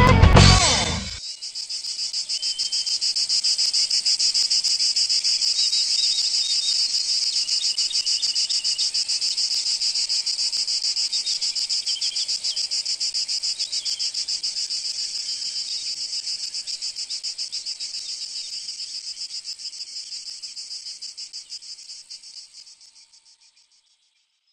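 A rock song cuts off about a second in. It leaves a steady, high-pitched insect chirring with a fast, even pulse, which fades out near the end.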